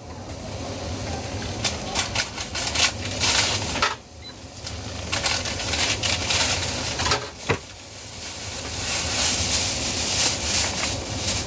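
Food-stall work: scattered clicks and knocks of utensils and containers over a steady hiss, the hiss growing louder about two thirds of the way through.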